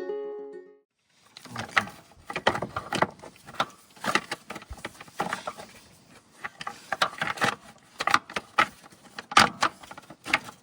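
Plastic underbody shield being unfastened and pulled aside by hand: irregular clicks, rattles and knocks of tools and plastic.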